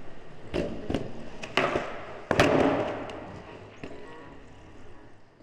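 Logo sting of sharp hit sound effects: about six quick knocks and cracks in the first two and a half seconds, the loudest near the end of the run, then an echoing tail that fades away.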